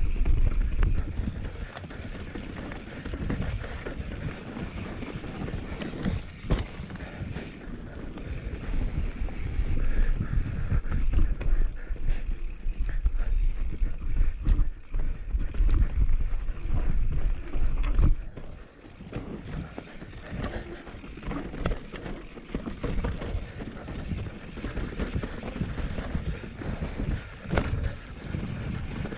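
Mountain bike riding fast down a dirt singletrack: wind rumbling on the rider-mounted camera's microphone, with tyres on dirt and the bike's chain and parts rattling and knocking over bumps. The wind rumble is heaviest through the middle and drops off sharply about two-thirds of the way in.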